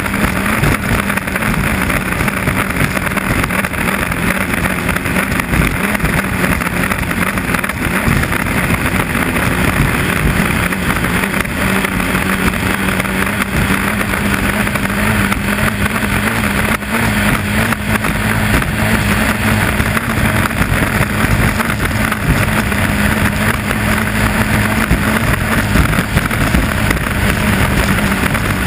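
Inboard hydroplane engine of a 2.5 Liter Stock class race boat running steadily under power, heard from a camera on its deck, with hull, water and wind noise mixed in.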